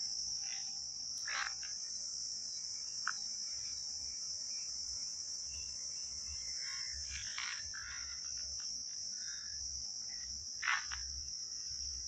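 Steady, high-pitched chorus of crickets chirring without a break, with a few short, faint calls over it and a low rumble beneath.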